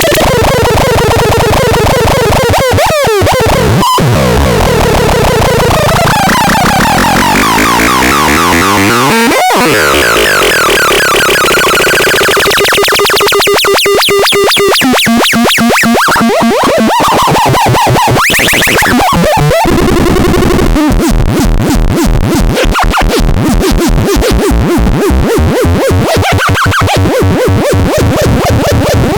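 Chaotic electronic synthesizer noise: shifting, warbling tones that sweep up and down, giving way about two-thirds of the way in to a fast, stuttering pulse.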